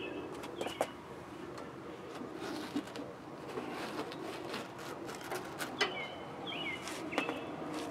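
Quiet background with a few short bird chirps and some light clicks.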